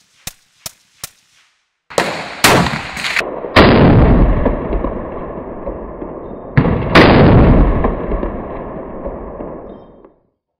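Shots from a .308 semi-automatic AR-type rifle: four quick sharp cracks about a third of a second apart in the first second. From about two seconds in come a string of much louder, heavy shots, each trailing a long rumble that fades out by about ten seconds.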